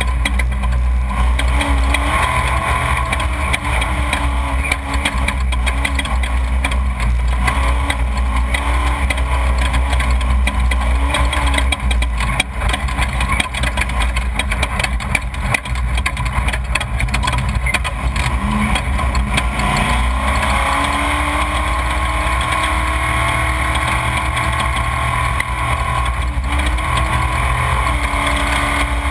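Off-road desert race vehicle's engine running at speed over rough ground, under a heavy low rumble. Many small knocks come from the terrain, and the engine note rises a little about two-thirds of the way through.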